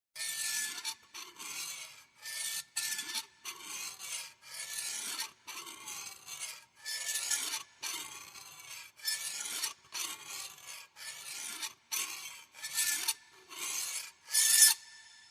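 A long run of rasping, scraping strokes, a little more than one a second, each with a faint ringing tone, the loudest stroke coming near the end.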